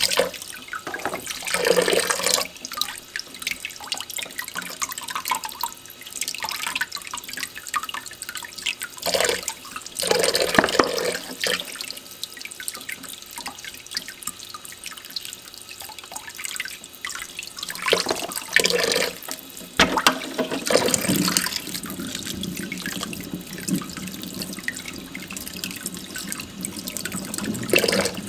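Kitchen tap running into a stainless steel sink as chicken eggs are rubbed clean by hand under the stream. The splashing swells louder about four times.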